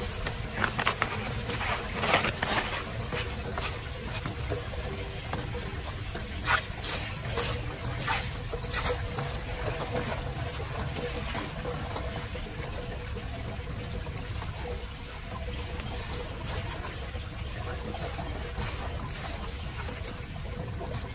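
Floodwater running and trickling down through a street storm-drain grate, with sharp splashes and clatter in the first few seconds and again a few seconds later as wet leaves and debris are scooped off the grate by hand.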